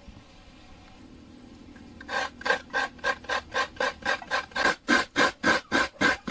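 A coconut half being scraped over the blade of a wooden stool-mounted coconut grater (kudkuran), the meat shredding into a steel bowl. The strokes start about two seconds in and go on in an even rasping rhythm of about three a second.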